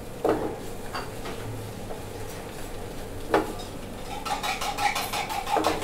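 A spatula clanking and scraping against a frying pan while fried rice is stir-fried. A few separate clanks give way, about four seconds in, to a quick run of scraping strokes.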